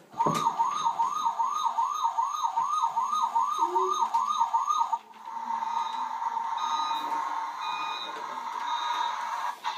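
Toy fire engine's electronic siren: a fast wail rising and falling about three times a second, changing about five seconds in to a steadier, slightly wavering tone that stops near the end.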